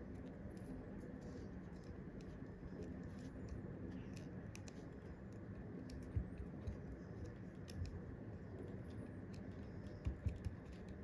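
Light scattered clicks and taps of small tools and parts being handled on a phone housing, with a louder knock about six seconds in and two more near the end, over a steady low hum.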